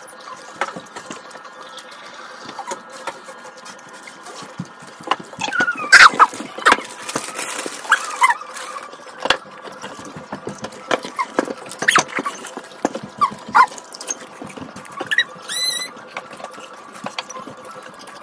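Chewing and munching of snacks eaten by hand during an eating race, with many small clicks and knocks and a few short mouth and vocal noises. A busier stretch comes about a third of the way in, and a brief rising squeal comes near the end.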